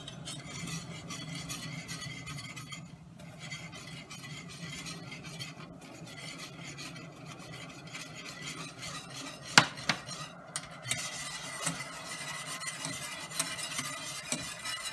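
Wire whisk stirring sugar into boiling juice in a stainless steel saucepan: a steady, rhythmic scraping and rattling of the wires against the pan. A sharp knock on the pan comes about ten seconds in.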